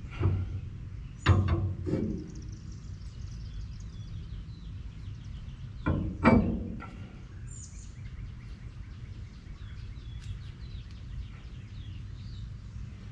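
A few short metal knocks as the Ford F350's rear axle shaft flange is worked onto the hub and lined up, the loudest about a second in and about six seconds in. Birds chirp in the background over a steady low hum.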